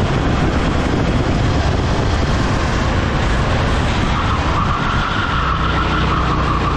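Race kart's engine running at speed, heard onboard with wind rushing over the microphone. About four seconds in, as the kart turns into a bend, a steady high whine joins and the engine note settles into a steadier tone.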